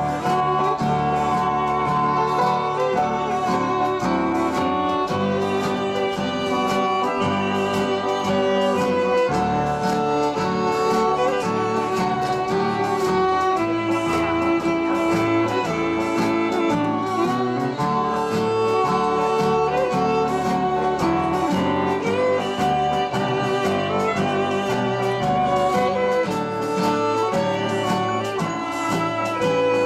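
Two fiddles playing a fiddle tune together, with an acoustic guitar strumming a steady rhythm underneath.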